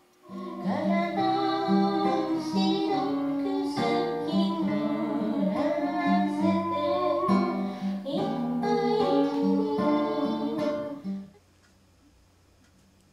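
A folk song played live on an acoustic guitar, with a man singing into a microphone. It starts just after the beginning and cuts off suddenly about two seconds before the end.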